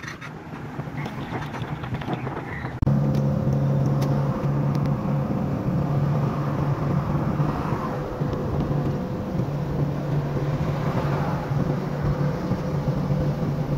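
Hyundai H100 pickup driving at about 80 km/h, heard from inside the cab: road and wind noise at first, then from about three seconds in a louder, steady low engine drone with an even hum. The engine is running well, having been fixed.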